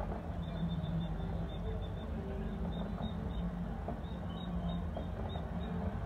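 Distant fireworks heard as a few faint thuds over a steady low rumble.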